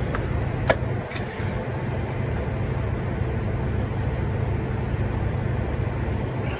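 Steady low rumble of a vehicle engine running, with two light clicks in the first second or so.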